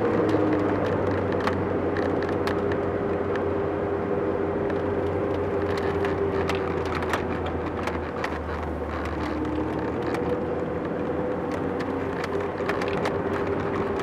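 Road and engine noise inside a moving car's cabin: a steady rumble with a faint hum that dips slightly in pitch, and light clicks and rattles scattered throughout.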